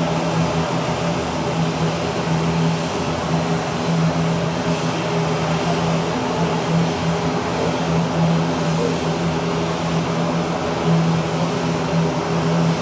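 ATR-72 twin-turboprop airliner's engines and propellers running with a steady, loud drone and a low hum.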